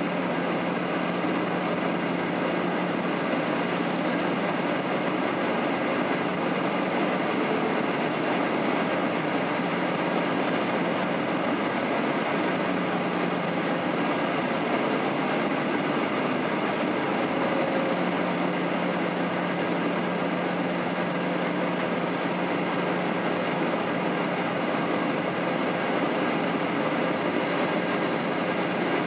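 Steady cabin noise inside a Boeing 737-800 on its approach to landing: the even rush of engine and airflow noise, with a low hum that fades in and out several times.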